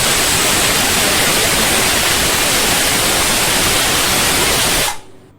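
Pressure cooker whistle: a loud, steady jet of steam hissing out under the lifted weight valve, cutting off sharply about five seconds in as the weight drops back.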